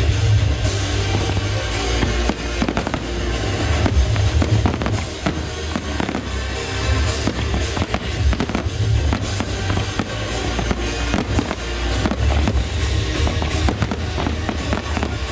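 Fireworks shells bursting and crackling in quick succession throughout, over accompanying music with a heavy, steady bass.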